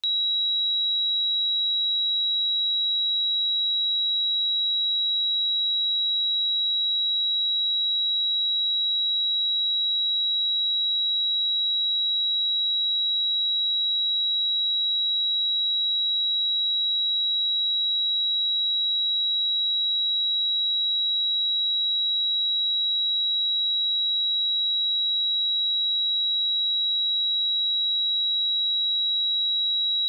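A pure 3872 Hz sine-wave test tone, a single steady high-pitched tone held at constant level with no harmonics or other sounds.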